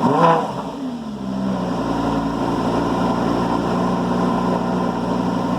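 Lamborghini Gallardo LP560's V10 running on what the owner takes for the stock exhaust, valves held fully open: a short rev just at the start that falls back to a steady idle by about a second and a half in.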